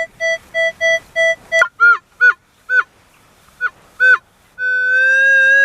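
Metal detector signalling a strong target: even beeps about three a second, then a handful of short tones that dip in pitch as the coil passes over the target, then a long steady tone that begins near the end.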